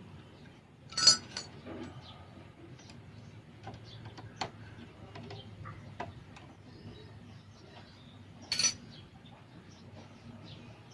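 Scattered light clicks of hands and tools working on motorcycle wiring, with two brief, sharp metallic clinks, about a second in and again near the end.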